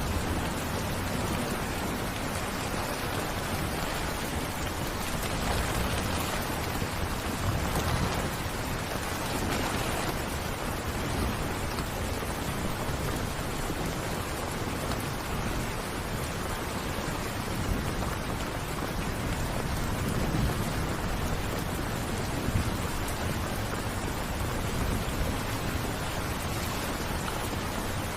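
Steady heavy rain falling, with a low rumble underneath that swells now and then like distant thunder.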